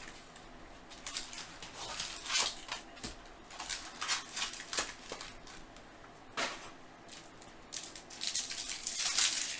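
Trading-card vending box and its foil card packs handled and opened by hand: irregular rustling and crinkling, with a sharp crackle about two-thirds through and a denser burst of crinkling near the end.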